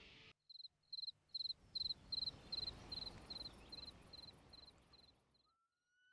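Insect chirping in a regular series of short, high, buzzy chirps, about two and a half a second, fading out near the end, over faint background noise.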